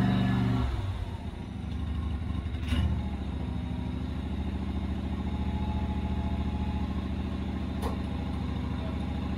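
Husqvarna ride-on mower's engine running; its speed drops about half a second in, with a sharp clack near three seconds, then it runs steadily. The engine starts and runs but the mower will not drive.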